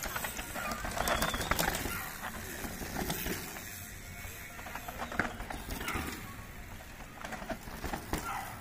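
Mountain bikes rattling and knocking down dirt steps with wooden edges, several sharp knocks as the wheels drop, mixed with short high chirps.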